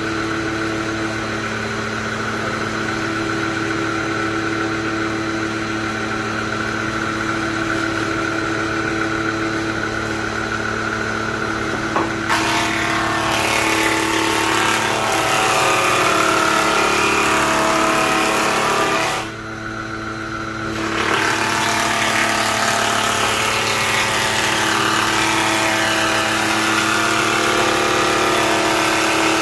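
Electric wood planer running with a steady motor whine. About a third of the way in it starts cutting, adding a rougher, noisier sound. The sound eases off briefly about two-thirds through, then the cutting resumes.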